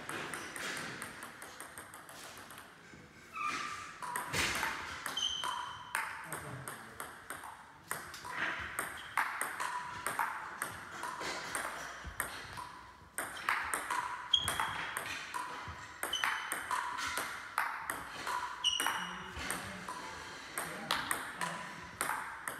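Table tennis rallies: the celluloid-type plastic ball clicking off the table and the bats in quick alternation, echoing in a sports hall. The rally stops about two seconds in and starts again about four seconds in, with another short break near 13 seconds.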